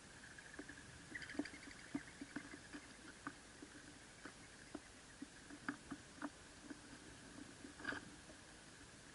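Eastern gray squirrels feeding on scattered seed close to the microphone: irregular small clicks and crunches, a couple a second, over a faint steady hum.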